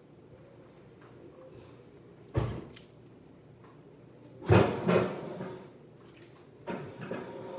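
Household knocks and bangs in a kitchen. There is a single knock a little over two seconds in, then two louder bangs close together about halfway through, and a smaller knock near the end.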